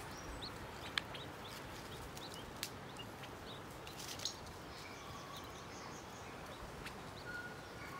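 Faint, scattered short high chirps from a family of California quail, adults and chicks, foraging on the ground, over soft outdoor background noise, with a few light clicks.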